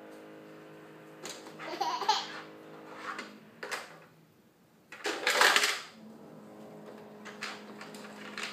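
A baby's short excited squeals and laughs, the loudest about five seconds in, with a few light knocks of plastic on the toy walker between them.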